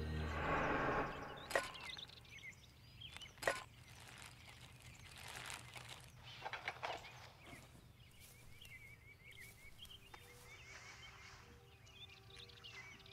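Footsteps on a woodland floor of pine needles and twigs, with two sharp cracks in the first few seconds and bursts of rustling a few seconds later. Small birds chirp faintly near the end, as background music fades out in the first second.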